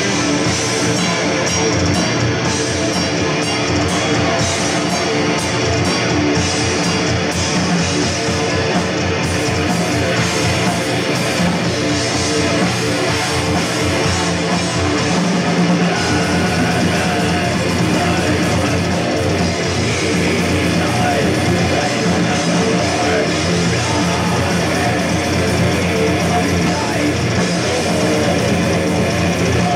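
Live black metal: distorted electric guitar over a drum kit, played at a steady, unbroken loudness.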